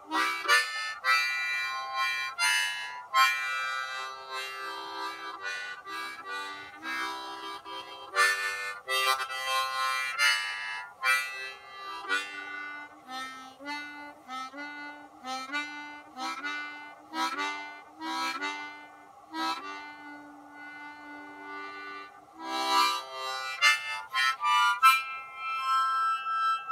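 A harmonica played in cupped hands: a rhythmic tune of quick chords and shifting notes over a steady held tone.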